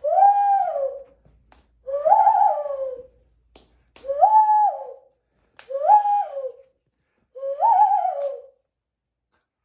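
A man imitating a bird call, five long calls about two seconds apart, each rising in pitch, holding, then falling away.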